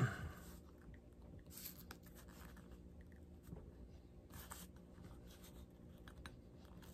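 Faint, intermittent scraping of a pointed hand tool drawn along leather against the edge of a metal stake, creasing a line to sew along, with two clearer strokes about a second and a half and four and a half seconds in.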